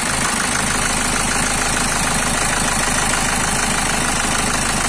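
Hyundai Santa Fe common-rail diesel engine idling steadily with the oil filler cap off. The mechanic takes the pressure from the open filler as one sign of leaking compression (blow-by), though other causes are possible.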